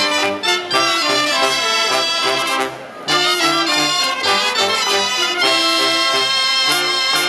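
A cobla playing a sardana live: trumpets, trombone and fiscorns together with the Catalan double-reed tenores and tibles over a double bass. The phrase breaks off briefly a little under three seconds in, and then the band plays on.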